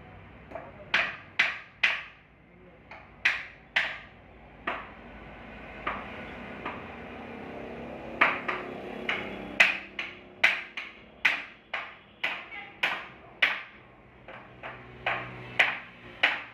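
Repeated hammer blows on wood, each a sharp knock with a short ring. The first few seconds bring them in twos and threes; from about eight seconds in they come in a steadier run of roughly two a second.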